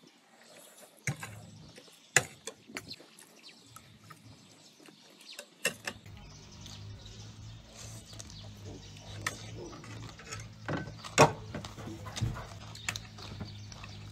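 Close-up eating sounds: chewing food, with sharp clicks of chopsticks against plates and bowls, the loudest about two seconds and eleven seconds in. A steady low hum comes in about halfway through.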